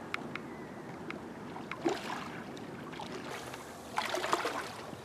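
Seawater lapping and sloshing against the concrete pier steps, with louder splashes about two seconds in and again about four seconds in. Scattered sharp ticks sound over it.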